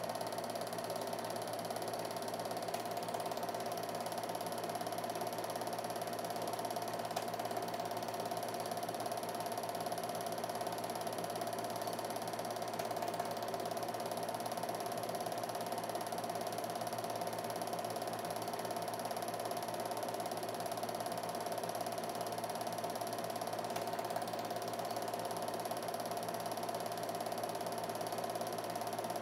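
Home-movie film projector running: a steady mechanical whirr and clatter from the motor and film-advance mechanism, with a constant hum.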